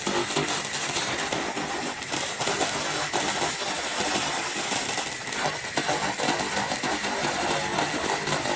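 Handheld 2000 W continuous-wave laser cleaner stripping rust from a metal radiator: a steady crackling hiss peppered with sharp ticks as the rust is burned off.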